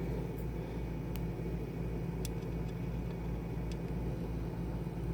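A few small, sharp clicks of a screwdriver and tiny drive screw against a laptop, over a steady low background hum.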